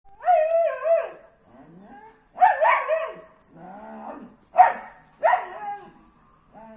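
A dog whining and yowling in a string of about five drawn-out calls, the pitch bending up and down within each one.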